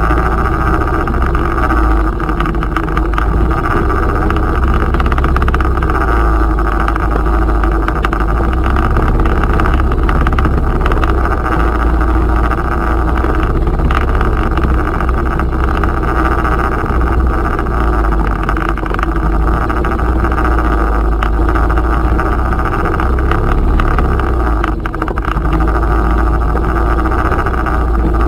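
Tohatsu outboard motor running steadily at trolling speed, pushing the inflatable boat, with water rushing along the hull.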